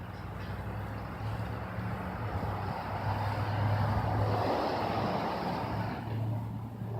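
An engine running steadily with a low hum, growing louder through the middle and easing off near the end.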